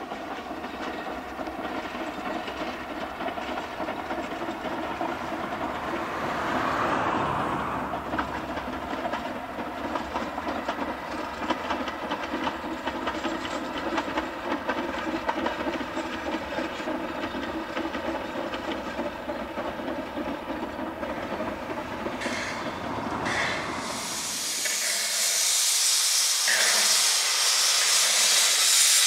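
Steam locomotive and its train running, a steady rumble with clatter. About three quarters of the way through this gives way to a loud steam hiss that grows louder toward the end.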